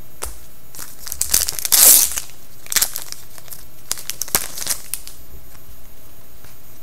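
Crinkling and rustling of trading card packaging and cards being handled, with a short loud rustle about two seconds in and smaller clicks and rustles after it.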